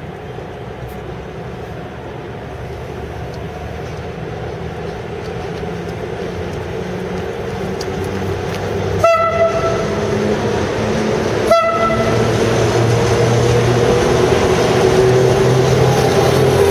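The drone ('rombo') of FS E656 049 electric locomotive pulling a train out, growing steadily louder as it approaches. Two short horn blasts sound about nine and eleven and a half seconds in.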